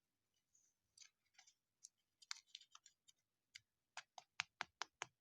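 Faint clicking and tapping as baseball trading cards are handled, ending in a quick run of about seven clicks near the end.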